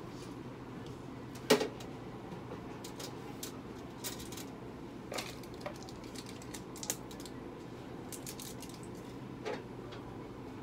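Steady clinic room hum with scattered light clicks and clinks, the sharpest a single knock about a second and a half in.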